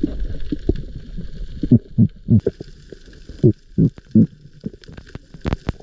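Underwater sound heard through a GoPro in its housing: irregular low gurgles of bubbles and moving water, with a few sharp clicks near the end.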